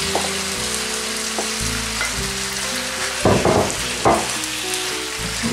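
Pork, onion and apple frying in a hot pan, a steady sizzle as red cabbage is tipped in on top. About three to four seconds in, a few short scraping knocks as a spatula scrapes the last cabbage out of the dish over the pan.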